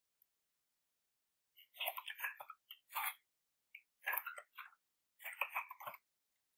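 Computer keyboard typing in quick bursts of keystrokes, starting about a second and a half in, with short pauses between words.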